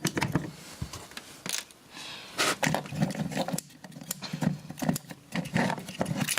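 Small plastic and metal parts of a dismantled RCD being handled on a bench: a run of irregular clicks, taps and rattles, a little louder about a second and a half and two and a half seconds in.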